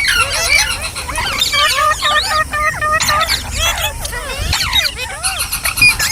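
Green parrot chirping and squealing without pause, a rapid run of short rising and falling calls.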